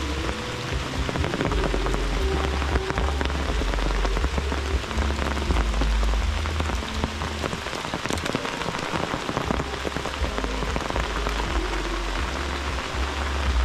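Steady rain falling on foliage and a wet dirt path, a dense patter of drops, over a low uneven rumble.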